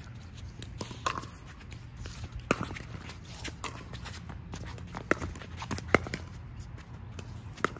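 Pickleball rally: paddles striking a plastic pickleball, about six sharp pops roughly one to one and a half seconds apart, the loudest two about five and six seconds in.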